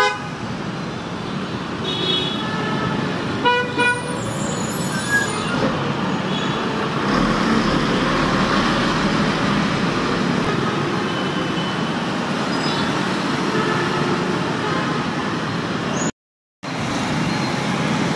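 Steady road traffic of passing cars and motorbikes, with a vehicle horn honking twice in quick succession a few seconds in. The sound cuts out completely for about half a second near the end.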